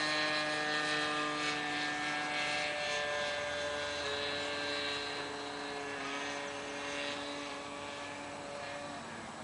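Sig Kadet LT-40 radio-controlled model plane's engine running steadily in flight. Its pitch slides slowly lower and it grows fainter as the plane moves away, dropping a little further near the end.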